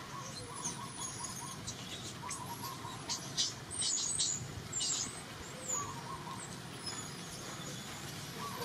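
Scattered high-pitched chirps and short squeaks over a steady outdoor background, busiest between about three and five seconds in.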